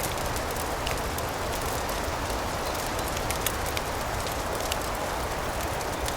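Fireplace fire crackling: many small sharp pops scattered over a steady hissing, rushing bed with a low rumble underneath.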